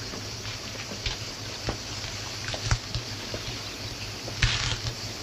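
Background noise of an old film soundtrack: a steady low hum and hiss with scattered clicks and crackles, and a short rustling burst about four and a half seconds in.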